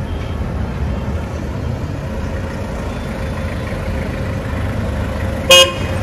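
Street traffic: vehicle engines running as a pickup truck approaches. Near the end comes one short, loud car horn beep, the loudest sound.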